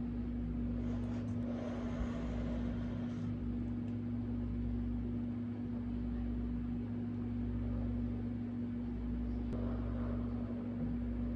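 Steady low electrical hum, with a soft hiss lasting about two seconds starting a second in.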